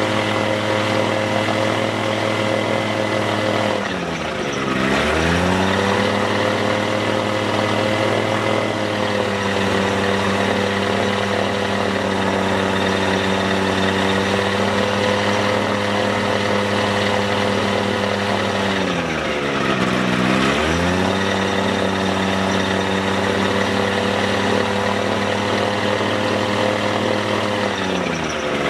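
Small propeller engine running steadily close to the microphone. It is throttled back and opened up again three times, the pitch sagging and rising each time: about four seconds in, around twenty seconds in, and at the very end.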